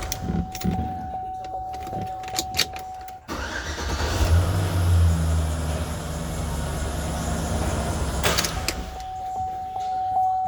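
2006 GMC Sierra engine cranked and catching about three seconds in, running for around five seconds with a brief rise in speed, then shut off. A steady electronic tone and a few clicks come before the start, and the tone returns after shut-off. The truck starts with the driver's seat wiring plug disconnected, which points to a fault in the driver's seat circuit as the cause of its no-start.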